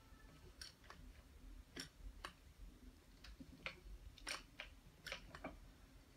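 Faint, irregular light clicks and ticks, about a dozen, as fingers handle yarn among the metal needles and yarn carrier of a circular sock machine.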